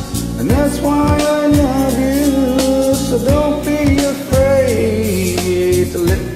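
Slow pop ballad backing music with a lead melody of long held notes that slide and waver, over steady bass notes and a light beat.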